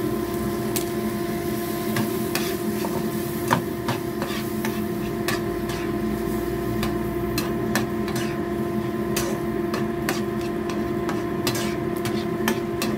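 Metal spatula clinking and scraping against a frying pan at irregular intervals while stirring a thick chili sauce, over the steady hum of a kitchen range-hood extractor fan.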